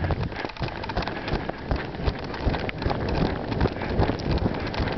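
Footsteps crunching through snow that has a crust of ice underneath, a quick irregular run of crunches, with some wind on the microphone.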